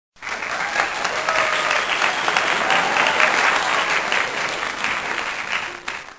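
Applause sound effect: a crowd clapping that starts abruptly, holds steady, then fades out near the end.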